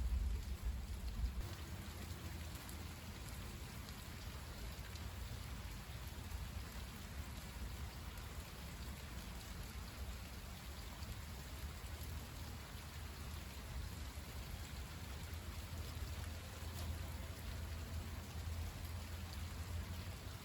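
Steady rain falling during a thunderstorm, with the tail of a low thunder rumble dying away in the first second or so.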